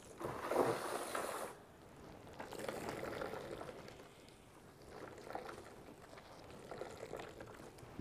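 Water pouring onto potted plants in a few short spells; the strongest spell comes in the first second and a half.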